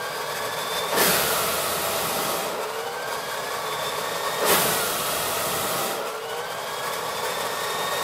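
Small 24 V DC centrifugal blower fan running with a loud rush of air and a whine that rises in pitch as it speeds up while its outlet is blocked by hand. A strong burst of air about a second in and again about four and a half seconds in, as the outlet is opened.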